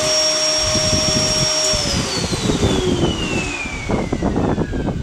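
Canister vacuum cleaner's electric motor running with a steady high whine, then switched off about two seconds in, its pitch falling steadily as the motor spins down.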